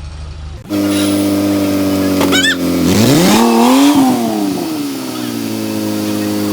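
An off-road 4x4's engine running steadily, starting abruptly less than a second in, then revved up once about three seconds in and easing back down to a steady run.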